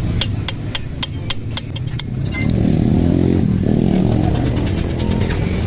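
A quick run of about eight sharp, evenly spaced clicks, about four a second, followed by a motorcycle engine running.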